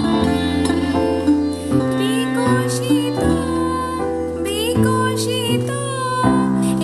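Music led by a plucked string instrument, over held bass notes that change every second or so.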